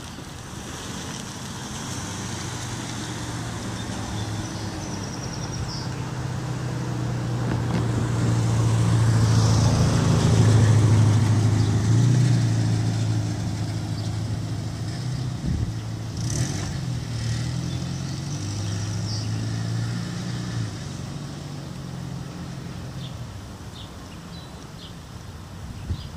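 A car driving slowly past close by. Its low engine hum builds to its loudest about ten seconds in, then fades as it moves off down the street.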